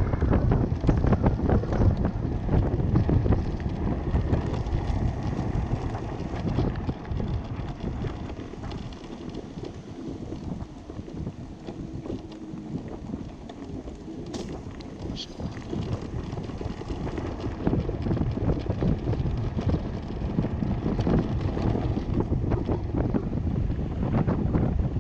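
Wind buffeting the microphone over the rumble of a homemade electric go-kart's tyres rolling along a paved path. It quietens in the middle as the kart slows, then picks up again toward the end.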